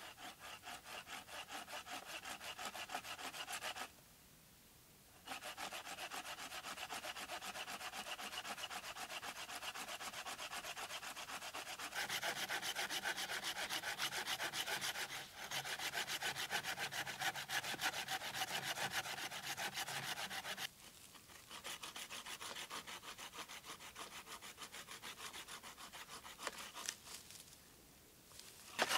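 A hand pruning saw cutting through a dead branch with quick, even back-and-forth strokes. The sawing stops for about a second near the 4-second mark, is loudest in the middle, and goes softer after about 21 seconds.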